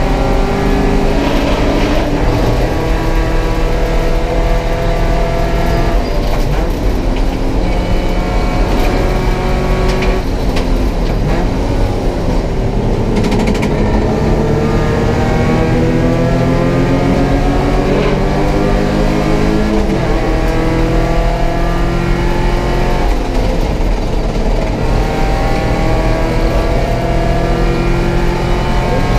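Porsche 944 race car's four-cylinder engine under hard acceleration, heard from inside the cockpit. Its pitch climbs steadily through each gear, then breaks and drops at each gear change, most plainly about twenty seconds in.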